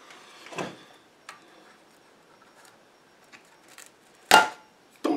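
Hands handling a laptop's small screws and metal bottom cover: a soft scrape and a few light ticks, then one sharp hard knock about four seconds in.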